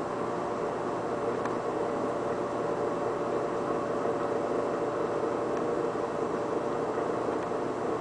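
An air conditioner and an electric fan running together: a steady noise with a faint steady hum.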